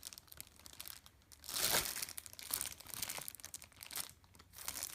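Plastic packaging crinkling and rustling as vacuum parts are unpacked, in a few short bouts.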